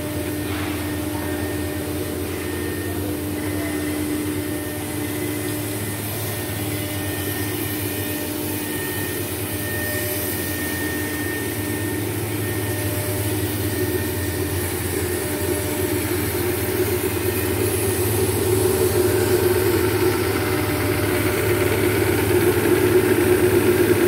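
Belt-driven rotary vane vacuum pump and its electric motor running steadily with a low hum. The sound grows louder over the last several seconds.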